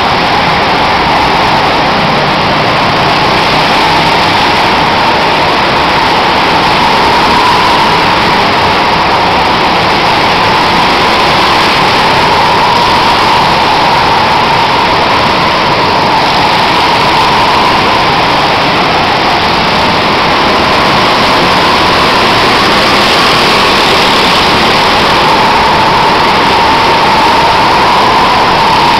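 Go-kart engines running continuously during a race inside an enclosed karting hall: a loud, steady din with one engine note that slowly rises and falls as the karts accelerate and slow.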